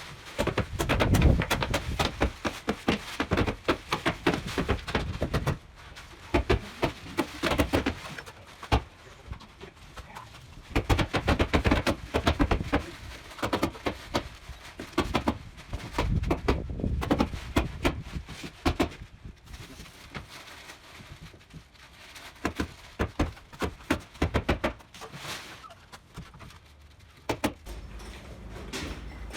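Irregular knocking and clatter from building work on a shed, with short sharp knocks in uneven clusters throughout.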